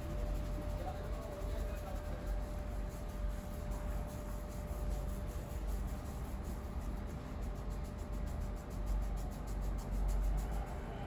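Hands rubbing and working over a person's head and hair during a head massage, with faint rapid ticking from about halfway through. A steady low rumble and a thin steady hum run underneath.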